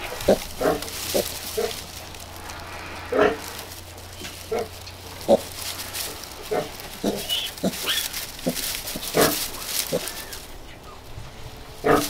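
Newborn piglets grunting, short grunts about once a second, with straw rustling under them.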